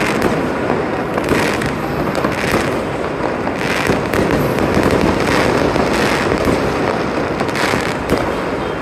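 Many fireworks and firecrackers going off at once: a dense, unbroken crackle of pops and bangs.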